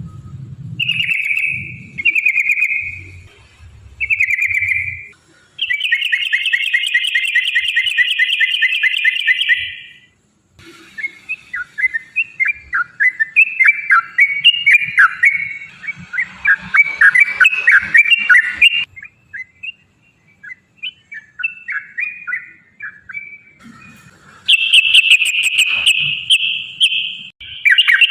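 Yellow-vented bulbul (trucukan) singing. It gives short whistled phrases, then a long rapid trill, then a run of quick chattering notes, and a second rapid trill near the end.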